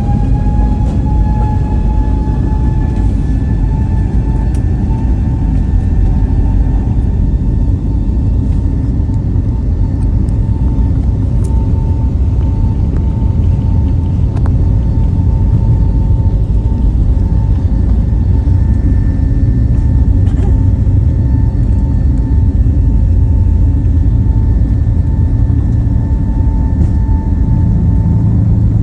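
Jet airliner engines heard inside the cabin, running at high power: a deep steady rumble under a steady high whine that has just finished rising in pitch at the start.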